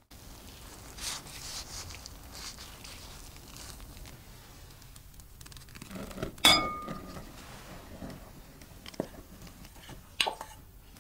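Gloved hands handling soft flatbread, a quiet rustling. Then flour is poured from a measuring cup into a glass mixing bowl. About six and a half seconds in comes a sharp, ringing clink of glass, the loudest sound, followed by a lighter knock and a second ringing clink near the end.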